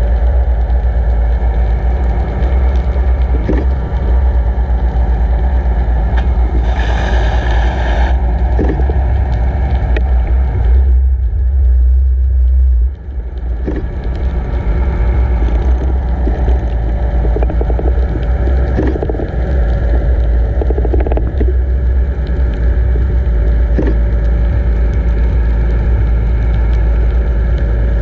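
Muffled, steady low rumble of water rushing past an underwater camera housing as it is towed behind a boat, with the tow boat's motor droning through the water. A brief hissy surge comes about seven seconds in and a short dip about thirteen seconds in, with scattered faint clicks.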